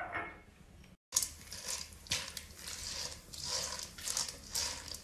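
Dried popcorn kernels stirred with a spoon in a pan of oil, rattling and scraping in repeated strokes about twice a second.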